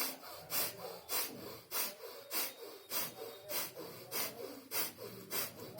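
A man doing bhastrika pranayama through one nostril: quick, forceful breaths sniffed in and out through the nose, about ten sharp strokes at an even pace of under two a second.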